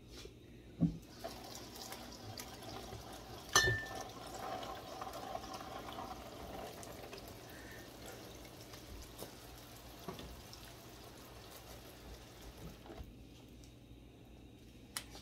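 Water running from a kitchen tap into a stainless steel sink for about twelve seconds, starting just after a thump about a second in and shutting off near the end. A sharp knock a few seconds in is the loudest sound.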